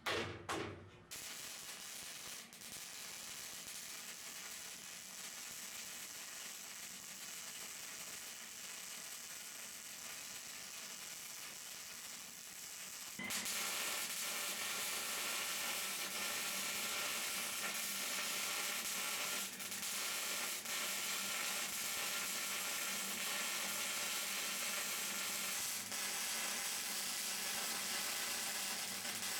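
Hobart Handler 140 MIG welder running a bead on steel: a steady welding sizzle that steps up louder about 13 seconds in, after a short knock at the very start.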